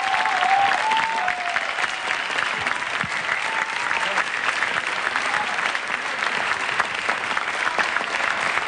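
Studio audience applauding steadily, dense clapping after the music has stopped.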